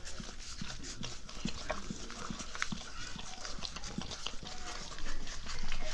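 A Siberian husky making quick, irregular small clicks, louder about five seconds in, over a steady low hum.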